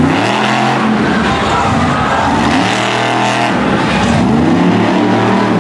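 Monster truck engine revving up and falling back several times in a row, its pitch swinging up and down with each burst of throttle.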